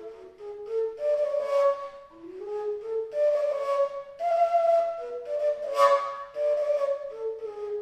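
Fujara, the long Slovak overtone shepherd's flute, playing a folk melody between sung verses, several phrases opening with a breathy rush of air over the notes.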